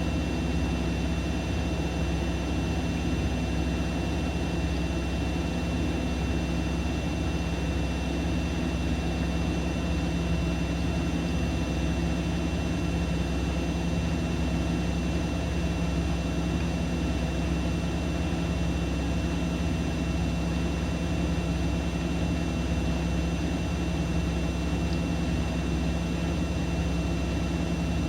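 Siemens Siwamat iQ 716 washing machine running steadily: a constant low motor hum with a thin, steady high whine above it.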